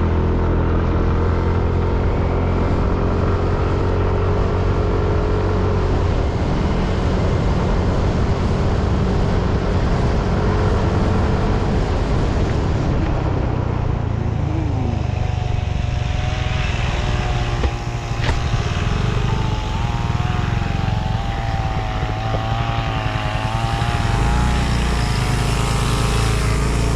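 A motor vehicle's engine running steadily with a deep hum, joined about halfway through by a higher wavering whine that rises and falls.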